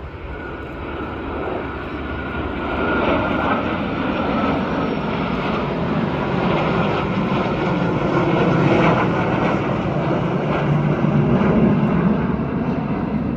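Jet formation flypast of a Boeing RC-135W Rivet Joint with a Saab Gripen, a Mirage 2000 and a Tornado: a broad engine roar that builds over the first few seconds and stays loud, with a faint whine falling in pitch at the start.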